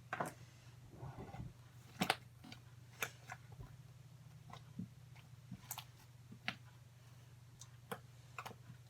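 Slime being squeezed and poked, giving scattered small wet pops and clicks at irregular moments, the sharpest about two and three seconds in, over a faint steady hum.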